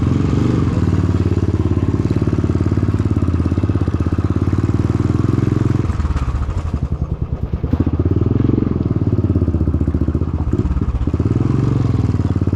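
Motorcycle engine and exhaust running loud, heard up close on the rider's helmet camera, its note dropping about six seconds in, then rising and falling twice as the throttle is opened and eased off. The silencer is very loud, loud enough to drown out the rider's voice.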